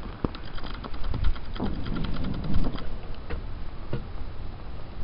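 Henrob oxy-acetylene torch flame hissing steadily while welding stainless steel, with a run of small crackles and pops in the first half or so that then thins out.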